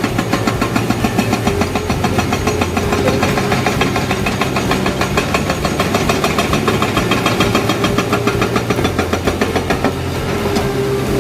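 Excavator-mounted hydraulic rock breaker hammering andesite rock in a rapid, even stream of blows over the excavator's running diesel engine. The hammering stops near the end, leaving the engine running.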